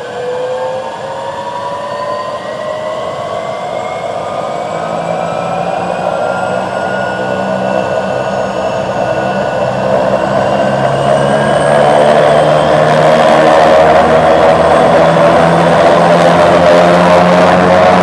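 Helicopter turbine engines spooling up on the ground before take-off: a whine rising steadily in pitch as the rotor gathers speed. A low steady rotor drone sets in about five seconds in, and the sound grows louder all the way, with a step up around twelve seconds in.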